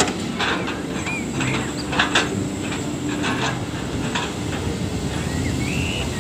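Diesel engines of log-loading hydraulic excavators running steadily, with sharp knocks of logs clattering in the grapple, the two loudest about two seconds in.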